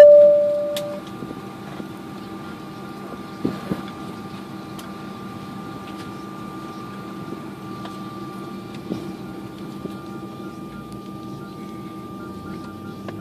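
A single loud cabin chime that fades over about a second, then the steady hum of an airliner cabin with the engines running while the jet taxis. A couple of light knocks come a few seconds in.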